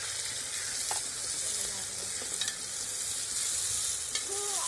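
Sliced onions sizzling in hot ghee in an aluminium pressure cooker as they brown, stirred with a metal slotted spoon that clicks against the pot a few times.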